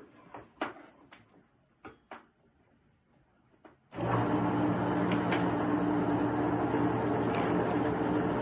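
A few light knocks and clicks, then about four seconds in a wood lathe's electric motor switches on suddenly and runs steadily with a low hum.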